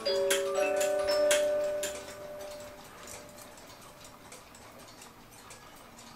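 A few plucked, ringing metal notes of a clockwork tune sound in quick succession and die away about two seconds in. Faint clock ticking carries on underneath.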